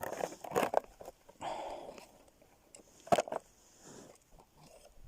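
Irregular crunching and crackling handling noises, with a sharp click about three seconds in.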